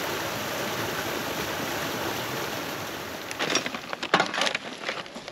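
Small creek waterfall rushing steadily over rocks. About three seconds in it gives way to a few seconds of crackling from a bag of tortilla chips being handled.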